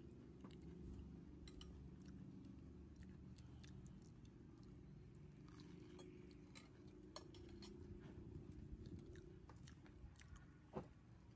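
Faint sounds of people eating: chewing and scattered small clicks of cutlery on plates over a low steady room hum, with one sharper click near the end.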